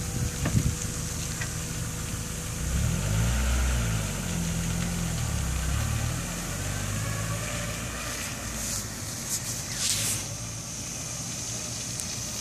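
1999 Mazda Miata's inline-four engine as the car pulls away, the engine note rising and shifting in pitch as it accelerates, then settling and fading as it drives off.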